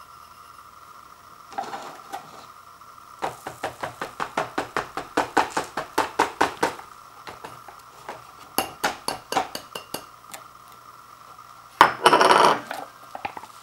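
A white ceramic bowl is tapped in quick runs against the rim of a paper instant-noodle cup, about four or five sharp taps a second, knocking leftover soup-base powder into the cup. A louder, longer clatter comes near the end.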